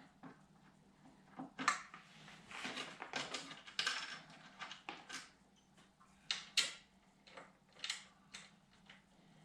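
Metal clinks, clanks and scrapes of hand tools and small hardware being handled, in irregular bursts with a few sharp clanks in the second half, over a faint steady hum.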